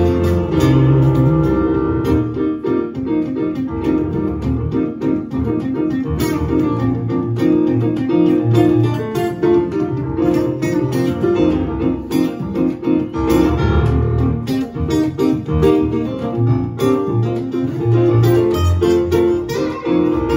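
Live acoustic guitar, strummed in a steady run of chords, with a digital stage piano playing along.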